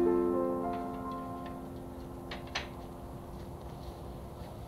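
Background music: a soft piano arpeggio whose notes ring on and slowly fade, with two light clicks about two and a half seconds in.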